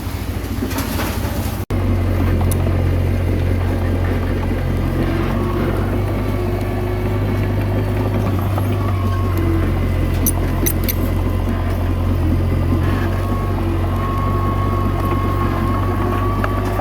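Komatsu D21A bulldozer's diesel engine running steadily. It drops out for an instant about two seconds in, then runs on a little louder.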